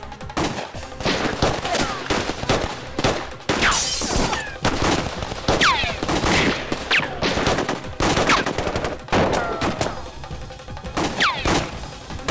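A gunfight: many gunshots in quick, uneven succession, with several ricochet whines falling in pitch between them.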